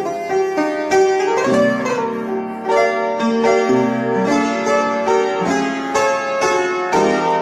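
Background music of plucked and bowed strings playing a melody with short, regular notes and some sliding pitches; it cuts off abruptly at the very end.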